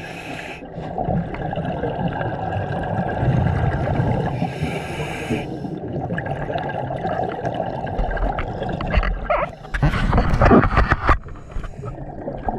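Scuba regulator breathing heard underwater: short hissing inhales at the start and around five seconds in, then a loud bubbling exhale of exhaust bubbles about ten to eleven seconds in, over a steady underwater rumble.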